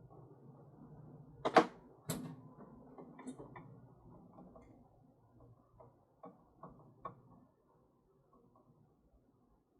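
Screwdriver and hardware clacking on a plastic saddlebag lid during hand assembly: two sharp clacks about a second and a half in, then a run of lighter clicks and taps over the next few seconds.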